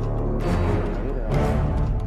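Dramatic film soundtrack music with low sustained notes and a swell of brighter sound about half a second in.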